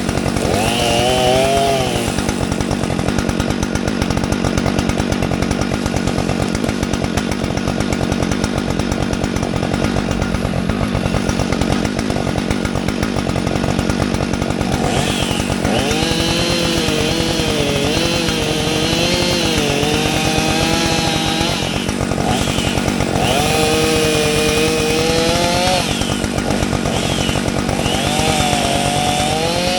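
Gas chainsaw running and cutting wood without a break. About halfway through, the engine note starts rising and falling repeatedly as the saw is throttled and loaded in the cut.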